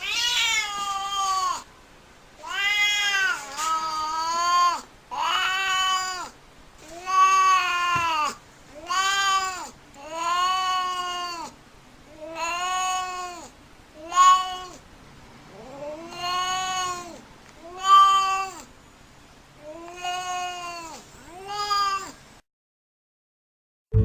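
Domestic cat giving a string of drawn-out, moaning meows, about a dozen calls each rising then falling in pitch, with short pauses between them. The calls stop a little before the end.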